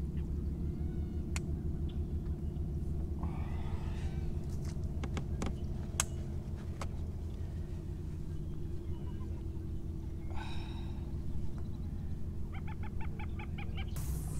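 A boat's outboard engine idling with a steady low hum, while marsh birds call over it: a couple of harsh calls, then a quick run of clucks near the end.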